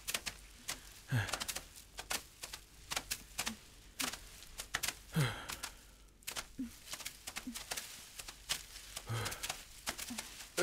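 Footsteps of several people crunching and snapping through dry leaves and twigs on a rocky slope, with a few short grunts of effort from the climbers.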